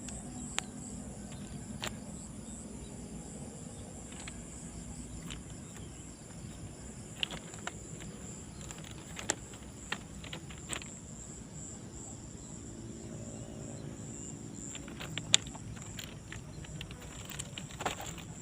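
Steady, high-pitched insect chirring, with a few sharp clicks scattered through it. A faint low hum of several tones comes and goes about 13 to 15 seconds in.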